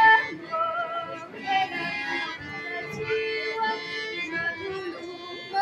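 Accordion music playing a Polish folk dance tune: a moving melody over chords held for a second or more at a time.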